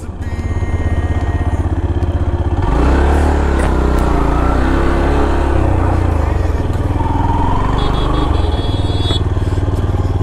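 Yamaha R15M motorcycle's 155 cc single-cylinder engine running as the bike is ridden. About three seconds in it gets louder.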